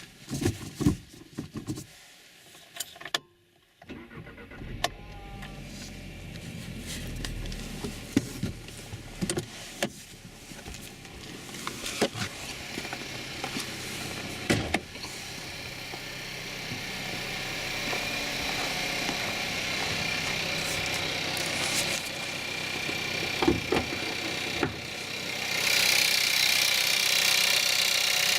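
Skoda Octavia 1.4 TSI turbo petrol engine cold-started at −5 °C: after a few knocks and a short pause it starts about four seconds in and runs on at cold idle with a rattling, diesel-like noise. It grows slowly louder, with a sudden step up near the end.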